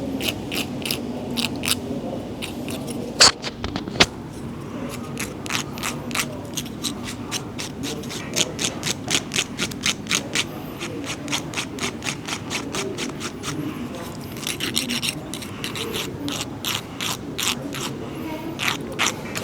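Repeated short snipping clicks from a hand grooming cutter working on a cat, about three a second, with two sharper knocks about three and four seconds in.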